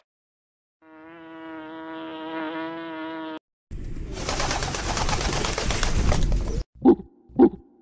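Feral pigeons feeding in a flock: about three seconds of dense, loud rustling noise, then two short coos half a second apart near the end. Before that, a steady held pitched tone runs for about two and a half seconds.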